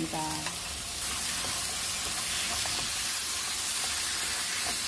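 Sliced onion, carrot and radish sizzling in oil in a nonstick frying pan while chili-paste sauce is stirred through them with a wooden spatula. The sizzle is a steady hiss that grows a little louder about a second in.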